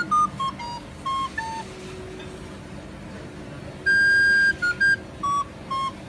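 Background music: a simple melody of short, clear, beep-like electronic notes stepping up and down, with one longer held high note about four seconds in.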